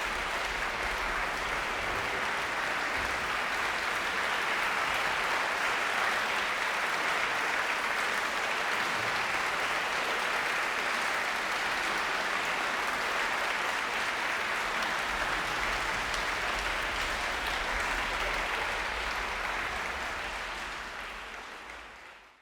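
Concert audience applauding steadily, fading out over the last two seconds or so.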